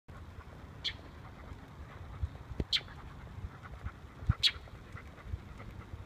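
A bird giving short, sharp calls, three of them nearly two seconds apart, over a few low thumps.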